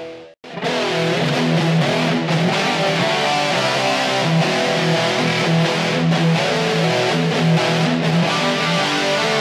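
Epiphone Les Paul Special I electric guitar playing riffs and chords, run straight through a Boss eBand JS-10 effects processor with no miked speaker cabinet. The sound drops out briefly about half a second in, then the playing carries on with steady, sustained notes.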